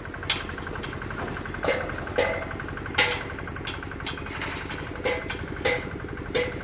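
A machine engine runs steadily while sharp metallic clanks ring out at uneven intervals, roughly once a second, with about nine in all.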